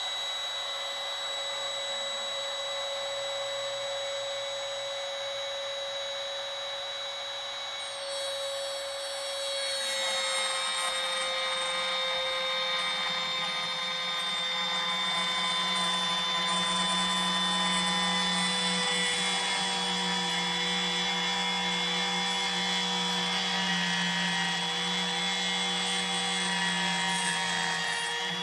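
Compact router running at full speed with a steady high whine. About ten seconds in it begins cutting into the wood, thinning it by just under 1/8 inch: its pitch dips slightly and a rougher cutting noise joins the whine.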